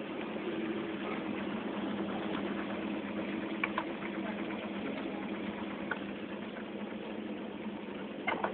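Old Gorenje dishwasher running its Daily Cycle: a steady motor hum over an even rushing noise, with a few faint clicks.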